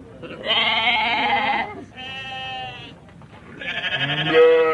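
Sheep bleating: three calls in a row, a loud quavering bleat, a shorter, softer one, then another loud bleat near the end.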